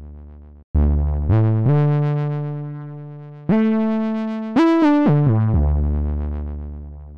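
Bitwig FM4 FM-synth bass patch, set monophonic with glide, playing a short phrase one note at a time. The notes slide into one another: a low note about a second in steps up twice, then a quick run up and back down near the middle, then a long low note that fades away. Its tone is moved by a Segments modulator on oscillator 2's modulation.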